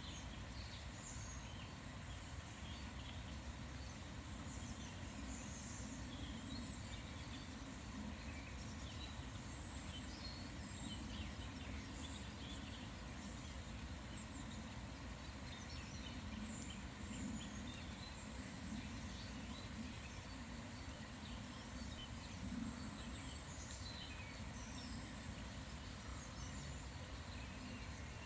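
Small birds chirping and calling in short scattered notes over a steady outdoor hiss.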